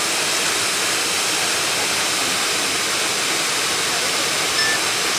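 Waterfall: a steady, loud rush of falling water that does not change.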